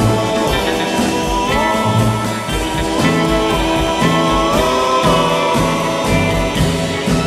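Background music, guitar-led, over a steady beat.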